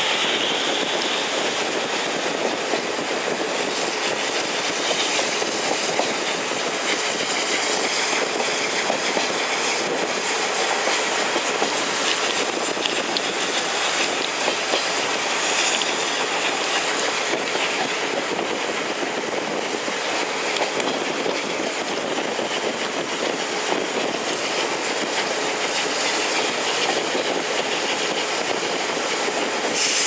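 Steady running noise of a train's wheels on the rails, heard from inside a passenger coach of a steam-hauled train.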